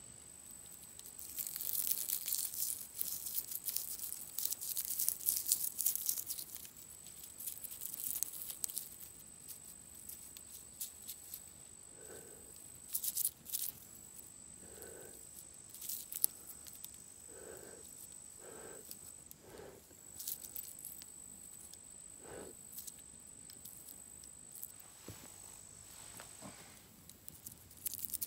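Dry wheat ears crushed and rubbed between the fingers to dehusk them: crisp crackling and rustling of the brittle chaff, in spells, loudest in the first few seconds.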